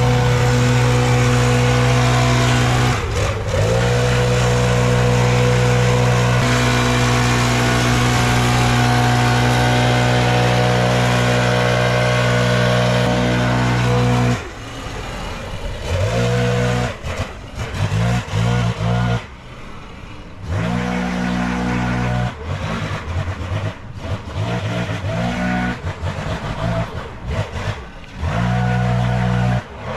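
Gas backpack leaf blower engine running at steady full throttle, with a short dip about three seconds in. About halfway through the throttle is let off and the blower revs up and down in short bursts.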